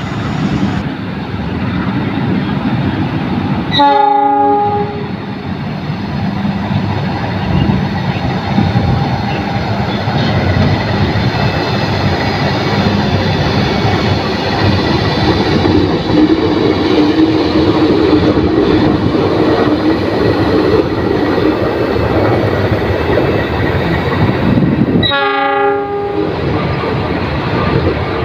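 CC206 diesel-electric locomotive hauling a freight train of loaded flat wagons over a steel girder bridge, its engine running and wheels rumbling on the rails. It sounds two horn blasts of about a second each, one about four seconds in and one near the end.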